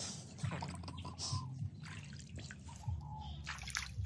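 Small splashes and drips of water, irregular and scattered, as hands grope about in a shallow, weedy pond.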